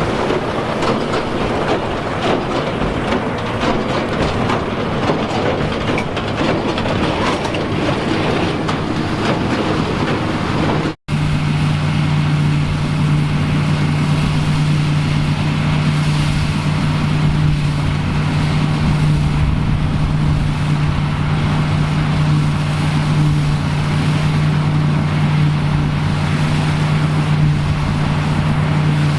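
Vintage farm harvest machinery working: a dense, rattling mechanical noise, then, after an abrupt cut about eleven seconds in, a single engine running steadily with a strong low hum.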